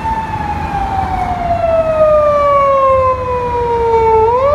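Japanese police patrol car's siren wailing: one long tone falling slowly in pitch, then sweeping quickly back up near the end, over a low traffic rumble.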